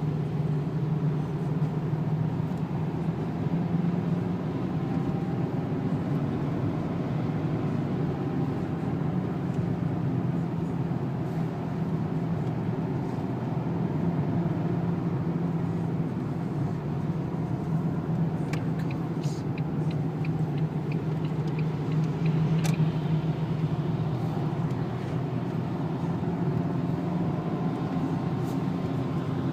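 Renault 2.0-litre turbo diesel car heard from inside the cabin, its engine running steadily at low speed with tyre noise on a wet track. A short run of light clicks comes about two-thirds of the way through.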